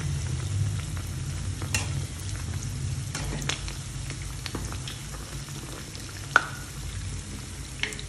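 Banana-and-wheat-flour fritters deep-frying in hot oil with a steady sizzle, and a few light knocks of a metal utensil against the pan as the balls are turned, the sharpest one late on.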